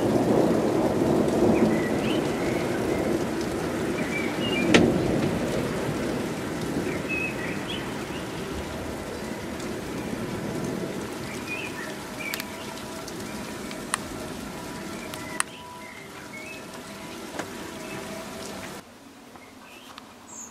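Rolling thunder of a winter thunderstorm, slowly dying away over the steady hiss of falling freezing rain and snow. A few sharp ticks stand out, and the sound drops off abruptly near the end.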